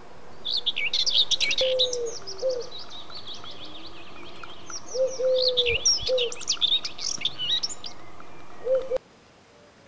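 Birds chirping and trilling busily, with a few short low coos among them. It fades in at the start and cuts off abruptly about a second before the end.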